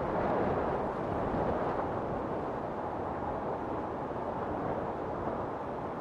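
Steady rushing wind ambience, a sound effect laid under the animation of leaves blowing in the wind.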